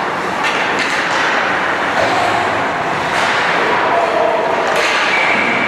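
Ice hockey game sounds in a rink: a steady wash of skate and arena noise, broken by several sharp knocks from sticks and puck, about four in the space of five seconds, with shouting voices.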